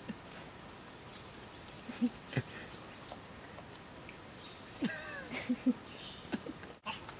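Steady, high-pitched insect drone over a low hiss. A few short, louder sounds break in: knocks and brief calls about two seconds in, then again around five seconds in.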